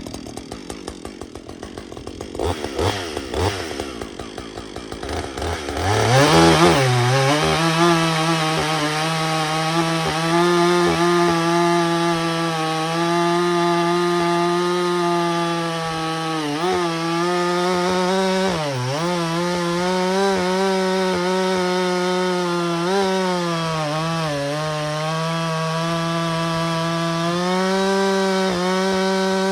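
Husqvarna 562XP two-stroke chainsaw, fitted with Westcoast Saw 3-point dogs, running unevenly at low speed with a few short revs, then opened to full throttle about six seconds in and held in a long cut through wood. The engine note stays high and steady under load, dipping briefly a few times as the saw bogs in the cut.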